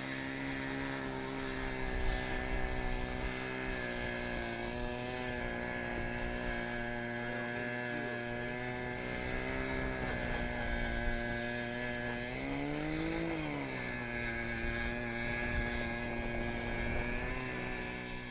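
A small engine running steadily at idle, revved up and back down once about two-thirds of the way through.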